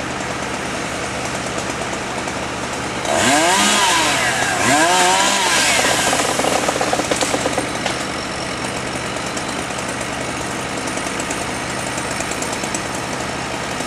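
A fire truck's engine idles steadily throughout. About three seconds in, a chainsaw is revved up and down twice, then runs in a rough, pulsing way for a few seconds before stopping around the middle.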